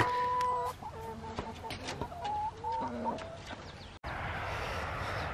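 Chicken clucking beside a feed bucket: one held call at the start, then several short calls over the next few seconds. After about 4 s a steady hiss takes over.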